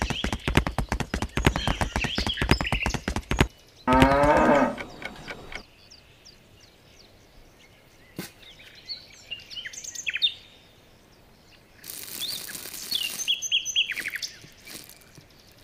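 Cow mooing: one loud moo falling in pitch about four seconds in, after about three seconds of a rapid pulsing sound. Birds chirp on and off after it, with a short rustling noise near the end.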